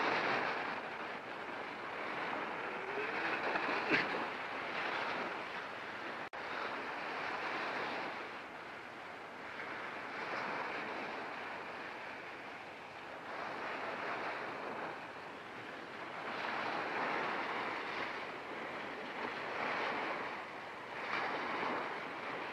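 Sea surf washing up a beach, the noise of the breaking waves swelling and falling back every few seconds.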